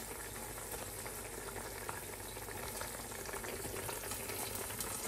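Vegetarian sausages frying in a covered frying pan: a steady sizzling hiss with small crackles.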